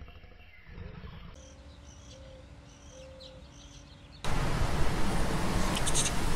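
Outdoor field ambience: a quiet stretch with a faint steady hum and a few faint high chirps, then, about four seconds in, a sudden cut to a loud, steady, wind-like rushing noise.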